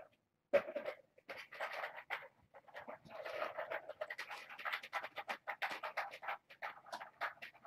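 Kittens at play on a rug: paws scrabbling and claws scratching, with irregular rustles and clicks from the toys they bat, and one sharp knock about half a second in.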